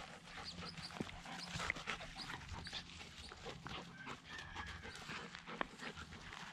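A goldendoodle and a vizsla puppy play-wrestling: dog panting with irregular scuffles and rustles from their paws and bodies.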